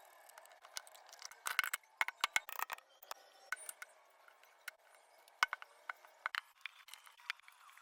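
Irregular sharp clicks and crackles, a dense cluster about one and a half to three seconds in and scattered single clicks after it.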